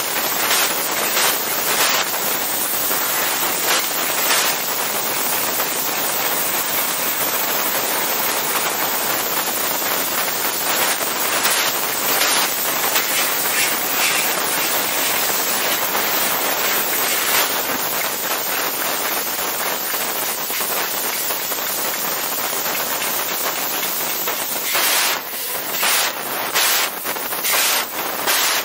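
Han's Laser fiber laser cutting machines cutting thin stainless steel sheet: a steady, loud hiss of the cutting head's gas jet as it burns through the metal. Near the end the hiss breaks into short stop-start bursts as separate small cuts start and stop.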